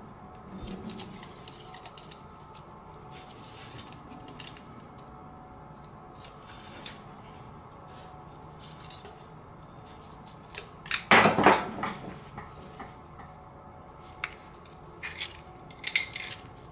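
Metal engine parts clinking and clattering as the cylinder and head are handled on a small single-cylinder engine's crankcase, with a loud burst of clatter about eleven seconds in and a few sharp clinks near the end.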